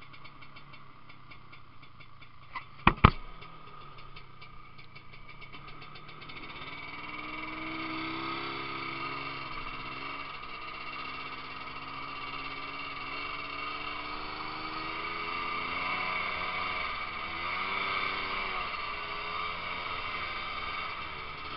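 Ski-Doo snowmobile engine ticking over evenly, then revving and running under way, its pitch rising and falling with the throttle. Two sharp knocks about three seconds in are the loudest sounds.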